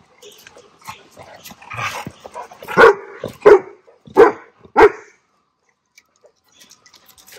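A dog barking four times in a row, about two-thirds of a second apart, after a couple of seconds of quieter dog sounds.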